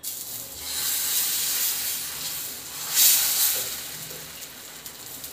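Rice-and-green-garlic batter hitting a hot, unoiled nonstick pan and sizzling as it sets into a lacy pancake full of holes. The hiss starts suddenly, is loudest about three seconds in, then eases off.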